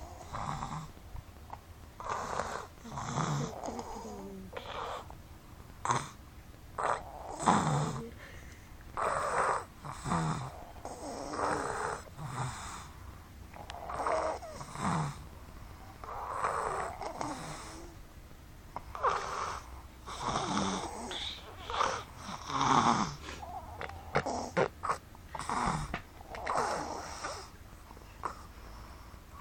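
Two people snoring in their sleep, rasping snores coming irregularly every second or two, some overlapping.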